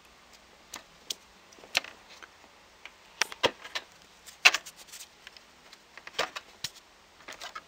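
Irregular light clicks and knocks as fingers handle an opened laptop's plastic case around its charging jack, checking that the re-soldered, hot-glued jack no longer moves.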